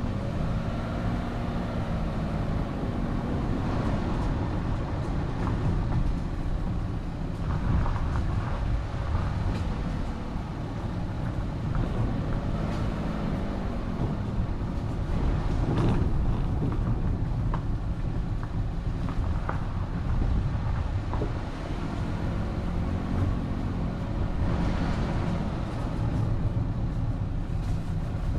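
A vehicle driving, heard from a camera mounted on it: a steady low road and wind rumble, with the engine note rising and falling several times as it speeds up and eases off.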